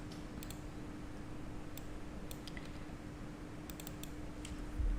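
Scattered, irregular clicks at a computer, mouse and keyboard being operated, over a faint steady electrical hum.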